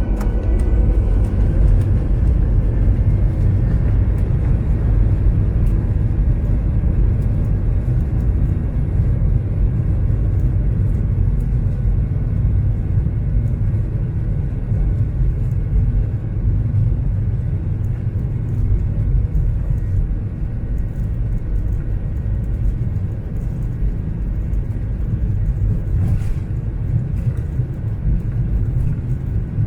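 Airliner cabin noise: a steady, loud low rumble of jet engines and airflow heard from inside the passenger cabin during the takeoff.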